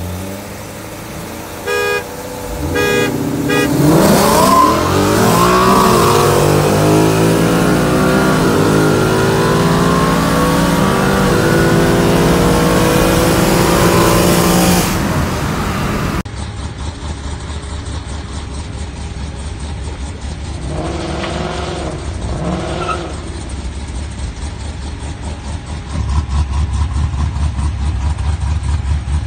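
A few short car-horn honks, then a Ford Mustang GT's 5.0 V8 at full throttle, climbing in pitch through repeated quick upshifts of its 10-speed automatic as it races a Corvette, heard from inside the cabin. After that, the engines idle, with two short revs.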